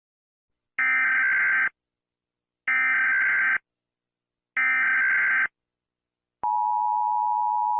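Emergency Alert System SAME header: three bursts of buzzing digital data tone, each about a second long with a second's gap between them. About six and a half seconds in, the steady two-tone EAS attention signal begins. Together they mark the start of an emergency alert broadcast.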